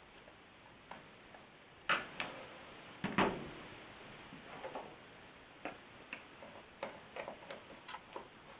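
Irregular small clicks and knocks of tools and metal parts being handled while working on a chainsaw, with two louder knocks about two and three seconds in.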